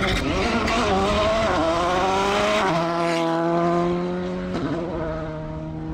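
Rally car engines revving hard on a gravel stage; the first shot is a Volkswagen Polo GTI R5. The engine note climbs and drops with gear changes in the first few seconds, then holds steady, and it jumps abruptly twice as the shots change.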